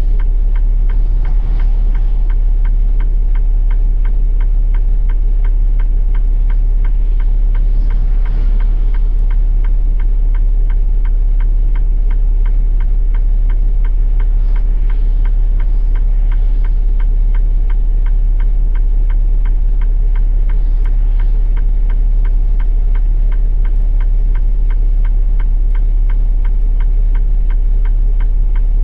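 Heavy truck's diesel engine idling: a steady low throb with a fast, even ticking over it.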